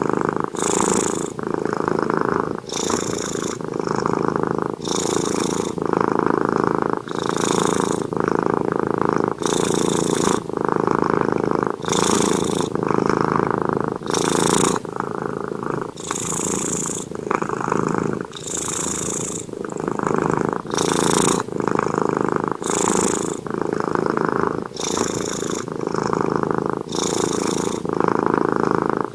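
Domestic cat snoring in its sleep, a snore on every breath, about one breath every two seconds.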